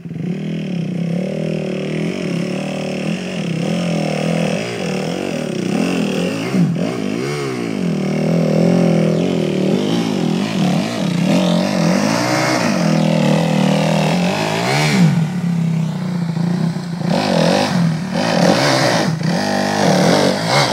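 Kawasaki KX250F four-stroke single-cylinder dirt bike engine under load climbing a steep rocky trail, revved up and down again and again. It gets louder in the second half.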